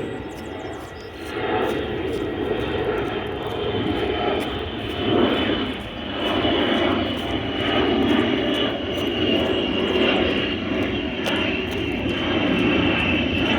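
Airplane engines roaring overhead as the plane climbs out after takeoff, swelling about a second and a half in and then holding steady. Loud enough to hurt the ears.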